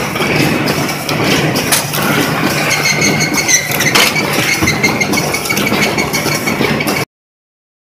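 Corrugated cardboard partition assembly machine running: steady motor and conveyor noise with scattered clicks and knocks, and a thin whine that joins about three seconds in. A sharp knock comes about four seconds in, and the sound cuts off suddenly near the end.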